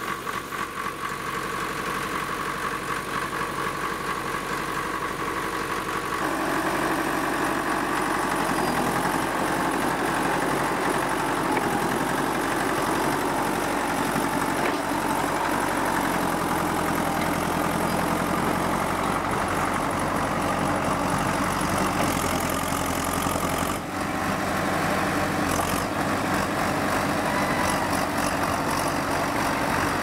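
Late-1960s Fiat crawler bulldozer's engine running steadily just after starting. It grows louder about six seconds in and keeps running, with a brief dip near the twenty-four-second mark.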